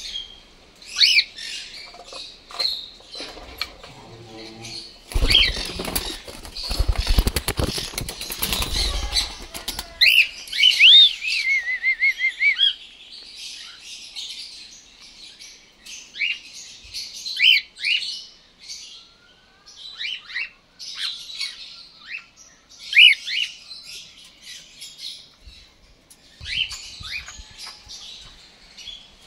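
Cockatiels in an aviary chirping, with many short high chirps and a warbling call about eleven seconds in. From about five to ten seconds in there is a stretch of wing-flapping and rustling as a bird flutters.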